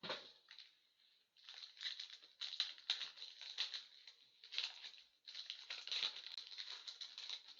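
Wrapping on a pack of hockey trading cards being torn open and crinkled by hand: a run of crackling rustles with a brief lull about five seconds in.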